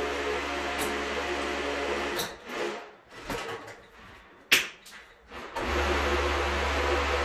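An electric motor running with a steady hum, cutting off about two seconds in, a few sharp knocks in the pause, then starting up again near the end.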